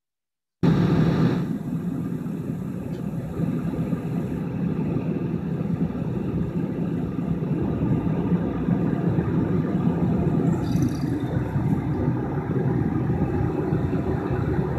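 Metalworking machine tool in a machine shop running steadily, a low mechanical hum while a turbojet prototype part is machined. It cuts in abruptly just under a second in, with a brief higher hiss about ten seconds in.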